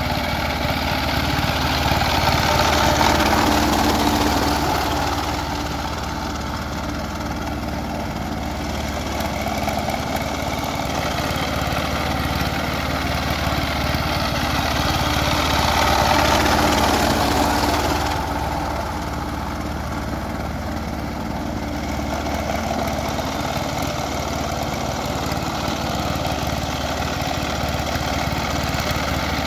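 Power tiller (two-wheel walking tractor) engine running steadily as the machine churns through a flooded, muddy paddy field on cage wheels. It swells louder twice, around 3 and 16 seconds in.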